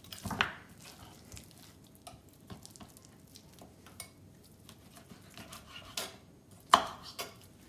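Knife trimming raw pork ribs on a wooden cutting board: scattered light clicks and taps of the blade and meat on the board, with one sharper knock near the end.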